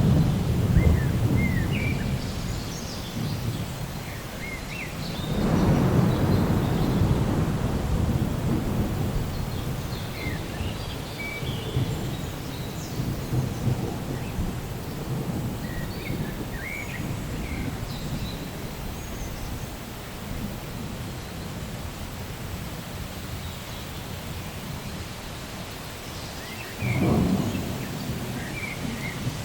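Thunderstorm: deep rolls of thunder over steady rain, one fading away at the start, another swelling about five seconds in and rumbling for several seconds, and a sharper clap near the end. A few short high chirps are scattered through.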